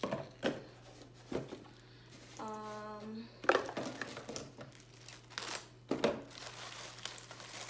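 Clear plastic bag crinkling in sharp, irregular crackles as it is handled around a roll of stickers.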